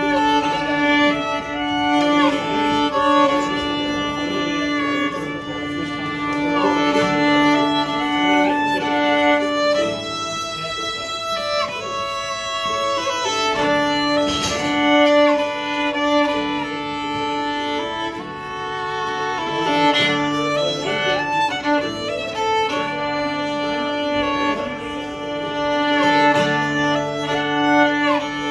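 Live acoustic folk band playing an instrumental passage: a fiddle carries the tune over strummed acoustic guitar.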